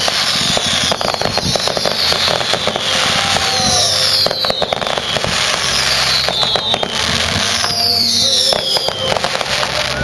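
Fireworks show: dense crackling and sharp bangs, with a falling whistle every second or two.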